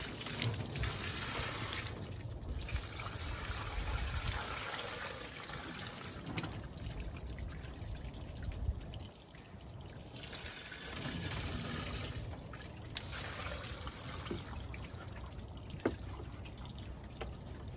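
Water being poured from a container into a stump grinder's engine area beneath the muffler, splashing and trickling down through the machine. It comes in several pours with short breaks between them.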